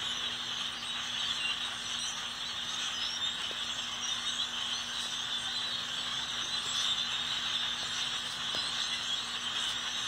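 A large flock of birds calling together in the treetops: a steady, dense mass of overlapping high-pitched chirps. A faint steady low hum sits underneath.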